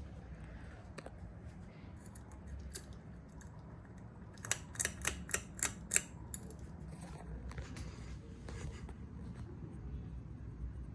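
A quick run of about six sharp clicks over a second and a half, with a few fainter ticks around them, over a low steady hum.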